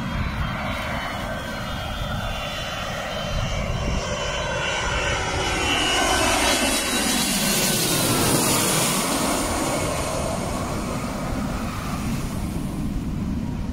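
Airliner on final approach passing low overhead: its engines' whine and rush grow louder, peak about eight or nine seconds in as the pitch falls, then begin to fade.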